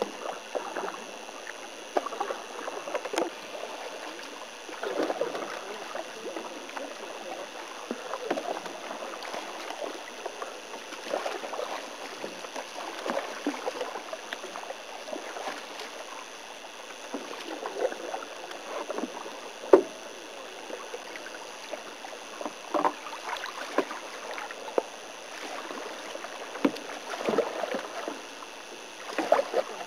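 Canoe paddling: paddles dip and pull through the water, making irregular splashes and drips every second or two. There is a single sharp knock about two-thirds of the way through.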